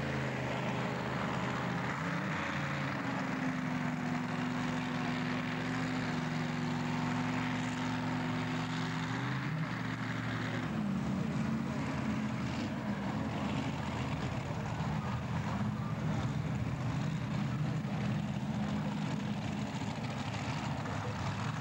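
Modified pulling tractor's engine running at low revs at the start line. Its pitch steps up slightly about two seconds in and shifts again around ten seconds in.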